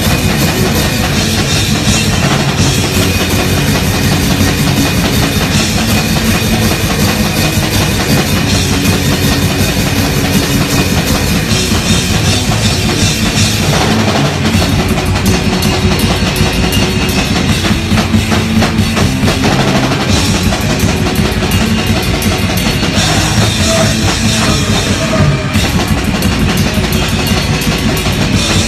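Drum kit played hard and continuously in loud rock music, with cymbal crashes and bass drum throughout.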